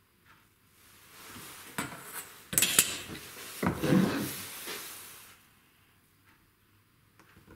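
A few knocks and a metallic clatter as a steel ruler and a metal drawing compass are handled and set down on a wooden workbench, the loudest about two and a half seconds in. Then a plywood board rubs as it slides over the bench top.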